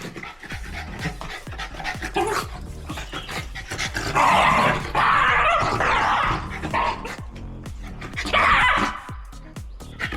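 Shiba Inu barking, loudest in a run of about three seconds starting about four seconds in and in a shorter burst near the end.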